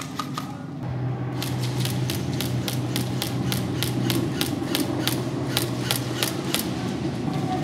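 Airsoft guns firing a rapid string of sharp shots, about five a second, for several seconds, over a steady low hum.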